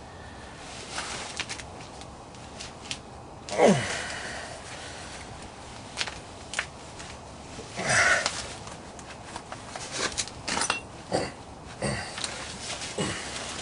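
Scattered knocks, clicks and scrapes of hand tools working at a glued-in rear axle seal, with a few short squeaks that drop quickly in pitch, the loudest about four and eight seconds in.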